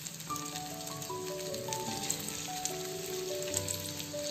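Hot oil sizzling and crackling in a nonstick frying pan as boiled stuffed potatoes are set in to shallow-fry, over background music of held single notes.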